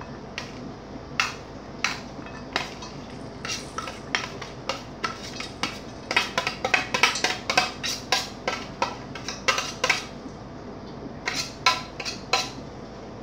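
Metal utensil scraping and knocking against a stainless steel tray as chopped onion and breadcrumbs are cleared off it into a stainless steel bowl: a run of sharp metallic clinks, quickest in the middle and again near the end.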